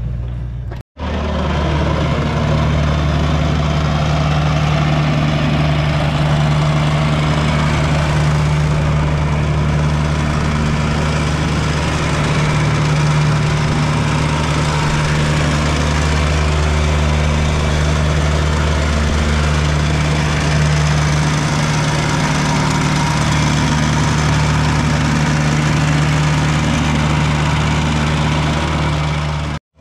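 Petrol plate compactor (whacker) running steadily as it compacts a bed of sharp sand, a loud, even engine drone with a low vibrating hum. It starts abruptly after a short gap just under a second in.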